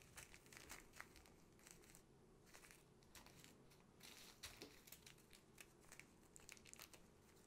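Small plastic zip bags of diamond painting drills crinkling faintly as they are picked up, their zip seals pinched shut and set down on the table. Scattered soft ticks and rustles come from the bags and the loose drills shifting inside them.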